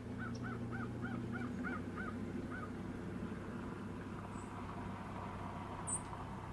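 A bird calls in a quick series of about eight short, arched notes, around three a second, during the first few seconds, over a steady low hum.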